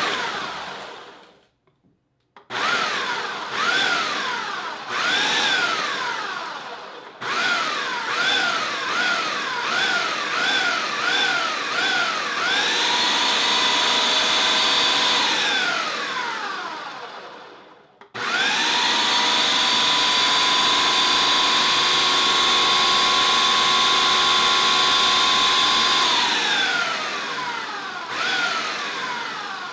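Ninja Mega Kitchen System's 1500-watt motor driving the 4-blade assembly through frozen mango chunks in the food-processor bowl. It starts as a series of short pulses, each a whine that rises and falls, coming quicker after several seconds. Then it runs steadily twice, a few seconds and then longer, each time winding down, with a few more pulses near the end.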